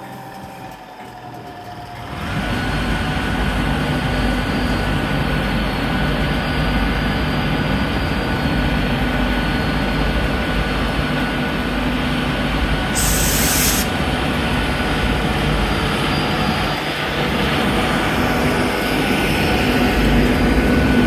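Class 91 electric locomotive powering up: about two seconds in, a loud rumble starts suddenly with a steady high whine over it, and both run on. About thirteen seconds in there is a short, sharp hiss of air.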